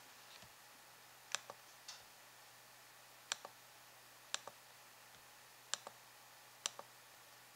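Computer mouse button clicks, about five, each a sharp press followed a split second later by a softer release, over faint steady hiss.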